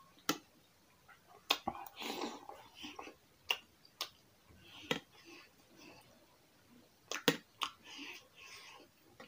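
Metal spoon clinking against an enamel bowl while scooping potato curry, about ten sharp clinks, some in quick pairs, with wet chewing and mouth sounds in between.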